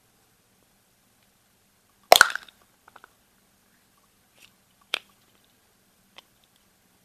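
Milk-chocolate shell of a Kinder Surprise egg cracking open along its seam about two seconds in, a short, loud crackling snap. A few faint ticks follow, then one sharper click and another small tick as the two chocolate halves are pulled apart around the plastic capsule.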